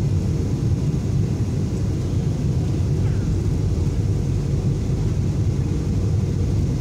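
Steady low rumble of airliner cabin noise, engines and airflow, as the plane descends to land, with a faint steady tone above the rumble.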